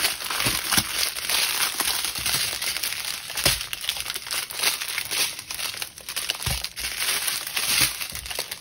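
Small plastic bags of diamond-painting drills crinkling as they are handled and laid out, with a few knocks.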